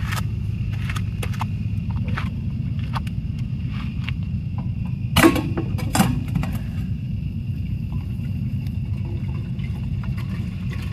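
Campfire crackling and popping over a steady low rumble, with two louder pops about five and six seconds in.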